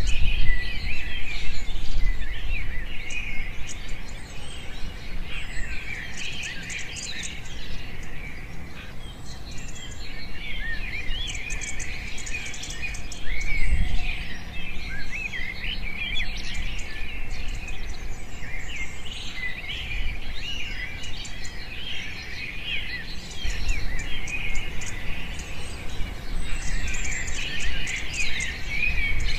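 Many small birds chirping and twittering continuously, their quick rising and falling calls overlapping into a dense chorus, with a low bump about halfway through.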